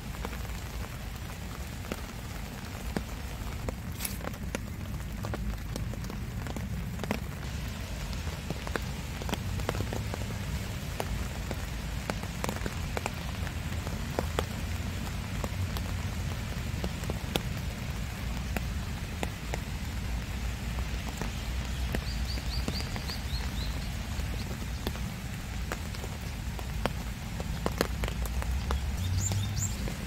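Steady rain falling, with many separate drops ticking close by and a low rumble underneath. About two-thirds of the way through, a bird gives a brief run of quick high chirps.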